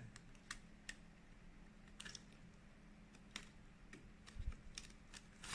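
Faint, scattered light clicks and ticks of hands handling a print head cable and its connector on a printer carriage board, over a faint steady hum.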